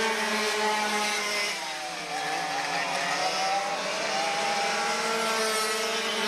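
Several two-stroke, dual-engine racing go-karts running at speed, with a high-pitched buzz from several engines at once. About two seconds in the pitch falls as they back off, then rises again as they accelerate.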